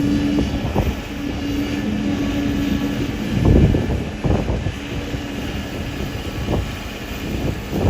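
Kobelco hydraulic excavator's diesel engine running under load, with a steady whine that stops about three seconds in, then a loud low rumble about three and a half seconds in and a few smaller surges after.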